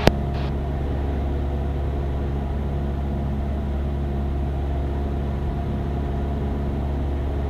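Cessna 172's piston engine and propeller droning steadily in the cabin in cruise flight on the downwind leg. A single sharp click comes right at the start.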